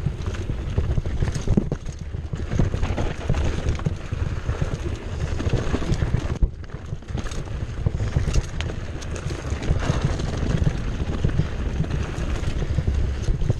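2015 Cannondale Jekyll 4 mountain bike riding down a rocky dirt singletrack: tyres crunching and the bike rattling and clattering over the bumps in quick, irregular knocks. Wind buffets the chest-mounted camera's microphone throughout.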